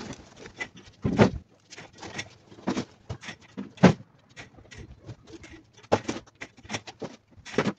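Irregular knocks and clatter of wooden boards being lifted and set down on one another, the loudest knocks about a second in and near four seconds in.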